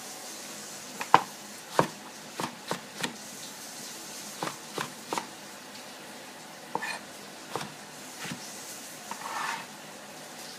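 Kitchen knife cutting eggplant on a plastic cutting board: about a dozen separate knocks of the blade on the board in small, uneven groups. A short scrape near the end as the cut pieces are pushed across the board.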